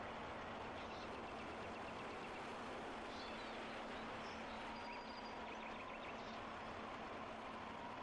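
Steady storm ambience: an even rushing noise with a few faint bird chirps over it. A faint long held tone comes in about five seconds in.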